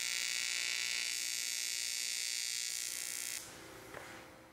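AC TIG welding arc on cast aluminum, buzzing steadily as weld is built up around a bolt hole. The arc cuts off about three and a half seconds in, leaving a faint sound that fades away.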